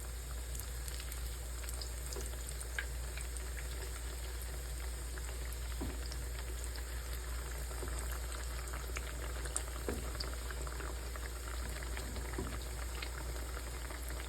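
Plantain slices frying in a pan of hot oil: a steady sizzle with scattered pops and crackles.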